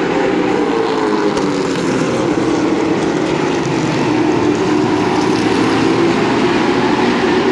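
A field of limited late model stock cars racing, their V8 engines making a loud, steady drone. The pitch slides up and down as cars pass and change speed.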